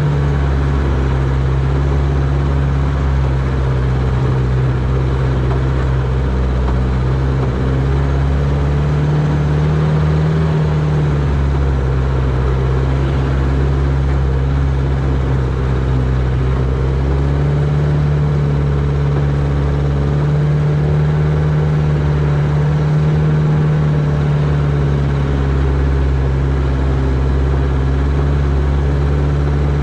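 1949 Willys CJ3A Jeep's four-cylinder flathead engine running steadily under light load in low-range four-wheel drive, its pitch rising and falling a little as it crawls along.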